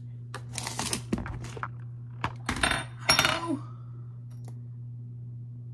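A shot glass and dishes being handled: light clinks and knocks, with a few short rushing bursts in the first few seconds. A steady low hum sits under it all.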